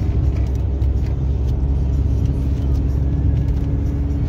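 Volkswagen Golf Mk4 diesel heard from inside the cabin while driving at road speed: a steady low engine drone with road and tyre rumble, and a steady hum over it.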